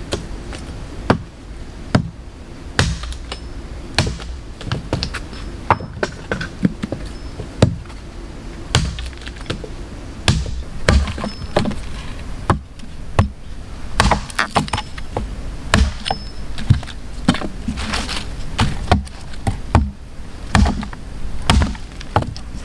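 A hatchet striking the ground and sticks: many irregular knocks and thuds, about one or two a second.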